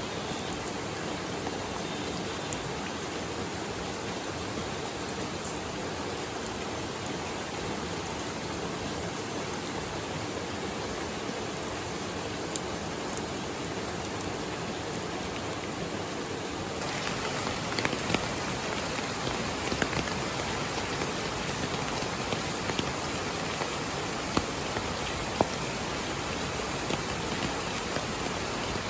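Steady rain falling, an even hiss. A little past halfway the sound shifts to a crisper patter with many separate drop ticks.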